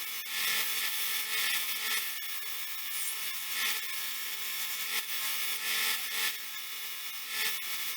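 Belt sander running with a steady hum while the steel hatchet head is pressed against the belt, the grinding hiss swelling several times as the head is worked. The head is being polished to take off rust and pitting.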